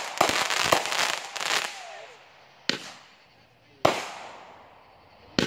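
Aerial fireworks bursting: a rapid run of crackling pops in the first second and a half, then three separate bangs over the rest, each trailing off over about a second.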